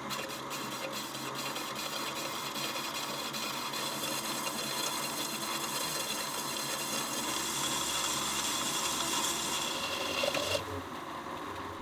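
Optimum metal lathe running as a cutting tool turns down a spinning 3D-printed plastic jig: a steady motor hum under the hiss of the cut. The cutting hiss grows brighter through the middle and stops about ten and a half seconds in.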